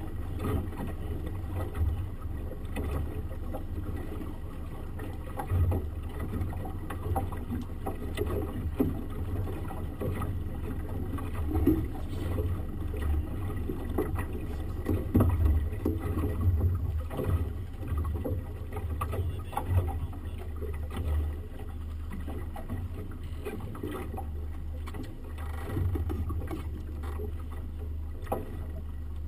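Small boat's outboard motor running steadily at low speed, with uneven gusts and bumps of wind and water noise over it.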